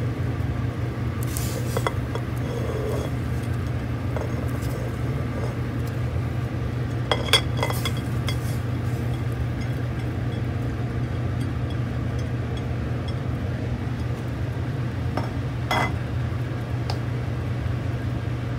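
Pieces of corn on the cob dropped by hand from a plate into a stainless steel pot of water, with a few sharp clinks of plate and pot, the loudest about seven seconds in. A steady low hum runs underneath.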